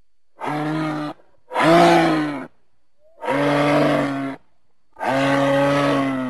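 Moose calling: four long, low calls of about a second each, separated by short pauses, the second the loudest.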